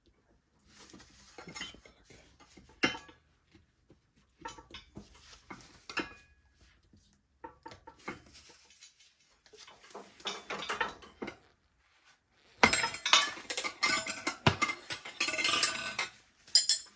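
Metal tire irons clinking and clattering as they are handled. The clinks are scattered at first and grow busier and louder in the last four seconds or so.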